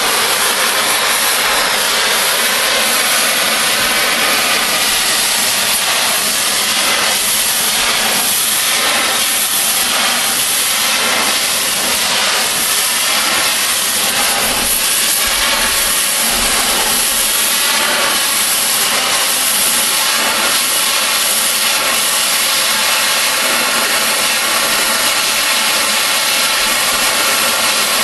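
Oxy-fuel cutting torch hissing steadily as it flame-cuts a steel railroad rail.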